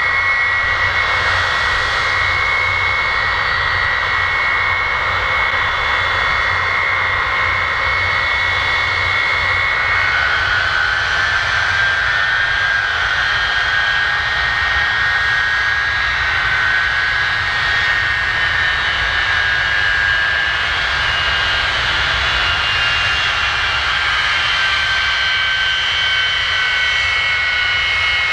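Boeing E-3A Sentry's Pratt & Whitney TF33 turbofan engines running on the ground: a steady loud rush with a high turbine whine. The whine drops in pitch about ten seconds in and climbs back near the end.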